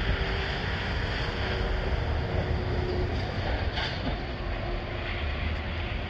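Steady traffic noise from a nearby highway, cars passing as a continuous wash, with wind buffeting the microphone.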